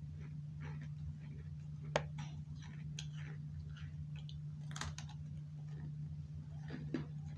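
Crunching and chewing of a crisp butter crunch cookie: irregular crackly crunches, the sharpest about two seconds in and another near five seconds, over a steady low hum.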